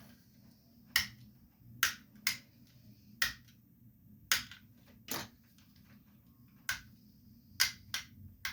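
Sharp plastic clicks and snaps, about ten at uneven intervals, as small pieces are pried and pulled off a plastic AMS lite spool holder by hand.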